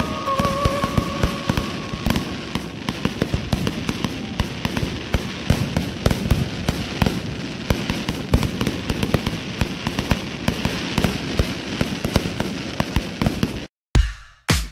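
Fireworks display: a dense, continuous run of bangs and crackles from aerial shells, cutting off suddenly near the end.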